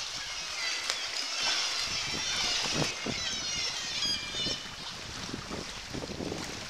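Water splashing and slapping around a sea kayak as it is paddled, with wind on the microphone. Many seabirds are calling over it for the first few seconds, then they fade.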